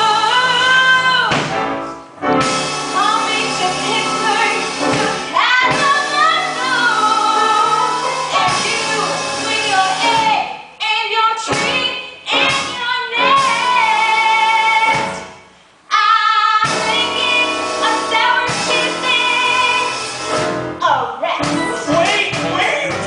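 A woman singing a musical-theatre number over backing music, with long held notes in a wide vibrato and short breaks between phrases.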